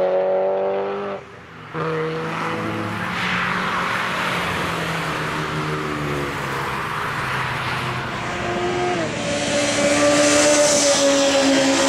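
Cars' engines at high revs passing by on a race track through corners. The sound drops out briefly about a second in at an edit, then comes back with more engine and tyre noise. Near the end a pitch drop comes just before a louder, steady engine note, with motorcycles in the picture at that point.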